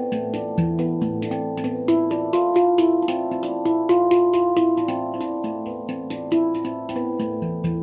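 Baopan handpan with a low A2 bottom note played with the hands: a quick, steady stream of finger strikes over ringing, overlapping notes. Deep low notes sound in the first couple of seconds and again near the end, with higher notes louder in the middle.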